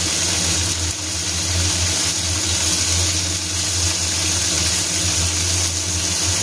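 Sliced steak sizzling in oil in a pan on an induction cooker as the pieces are turned, being cooked through a second time, over a steady low mechanical hum from a kitchen appliance.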